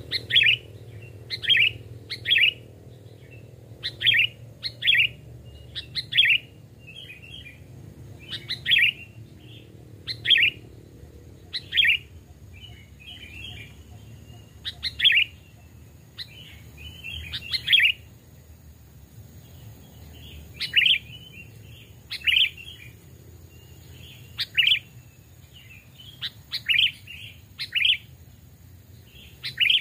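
Sooty-headed bulbuls calling: short, sharp chirps repeated about once every second or so, with softer warbled notes in between.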